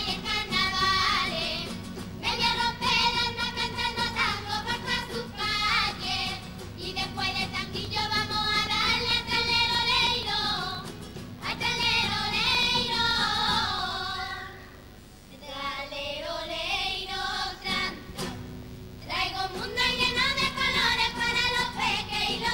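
A girls' children's carnival comparsa choir singing on stage, in sung phrases broken by short pauses, dropping quieter for a moment a little past the middle.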